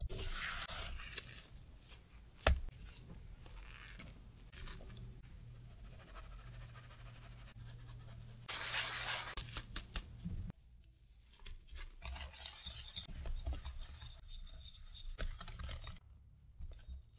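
A wire whisk scraping through creamed butter and sugar in a glass bowl, with one sharp tap a few seconds in. About halfway through comes a louder, rasping hiss of flour being shaken through a fine mesh sieve. Near the end a spatula and whisk work the crumbly cookie dough against the glass.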